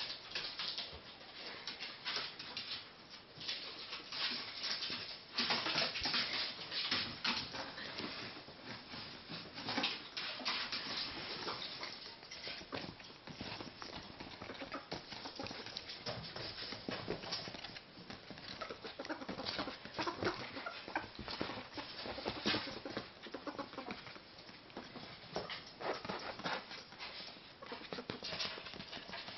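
Pet ferrets scampering and play-wrestling on a leather sofa, their claws scrabbling and scratching in quick, irregular bursts.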